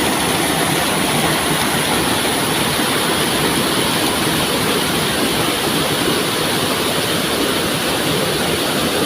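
Waterfall rushing, a steady, loud roar of falling water.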